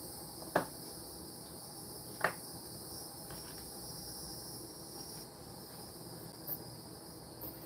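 Insects calling steadily in a high pitch, with two light clicks of small airbrush parts handled on a workbench, about half a second and two seconds in.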